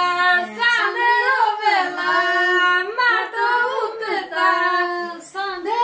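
Women singing a traditional Albanian wedding song unaccompanied, with long held notes and ornamented turns between them.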